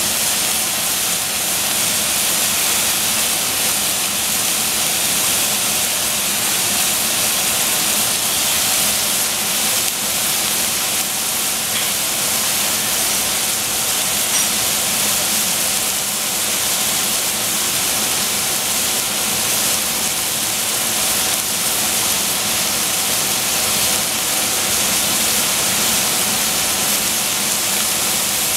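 Oyster mushrooms and vegetables sizzling in a stainless steel saucepan: a steady, even hiss that does not let up.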